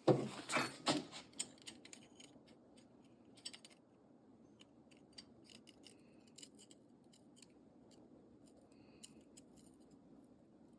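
Steel wrenches clinking together as they are picked up, with a few louder clinks at first. Then comes a run of faint light clicks and scrapes of metal on metal as the tools are worked.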